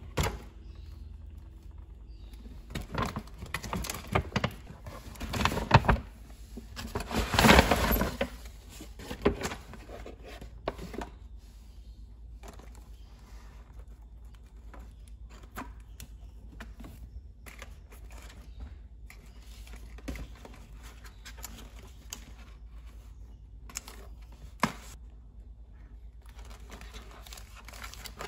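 Brown paper carrier bag rustling and crinkling as it is handled and unpacked, in bursts, loudest several seconds in. Then quieter scattered taps and clicks as a cord tied around a box of plastic-lidded cups is undone.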